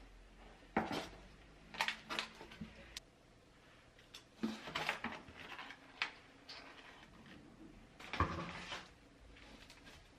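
Dishes and utensils being handled in a kitchen: a handful of separate clinks and knocks, the loudest about a second in and near the end.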